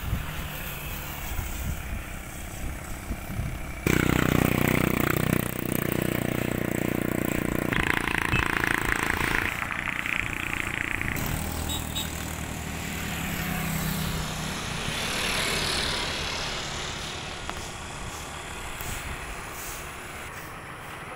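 Motorcycle engines running on the road, with an engine note that rises and fades as vehicles pass. The sound changes abruptly about four seconds in and again near eleven seconds.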